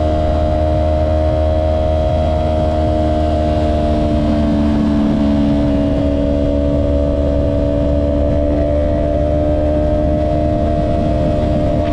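2023 Yamaha R3's parallel-twin engine through an M4 Street Slayer exhaust, running at steady speed with its pitch holding nearly level, over wind and road rumble.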